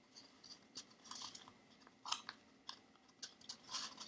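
Faint crinkling and rustling of glue-coated paper being rolled around a cardboard toilet paper roll, in scattered soft crackles.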